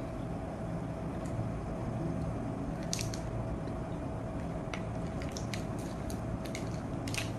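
Faint handling sounds from the plastic wrapper of a red bean ice cream bar: a couple of short crinkles about three seconds in, then a quick run of crisp rustles near the end as the wrapper is pushed down. A steady faint hum sits underneath.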